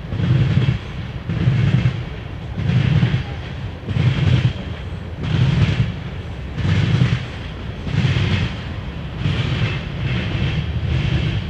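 Freight train of tank cars and covered hopper cars rolling past, its wheels clattering in a steady rhythm that swells roughly every second and a half over a continuous low rumble.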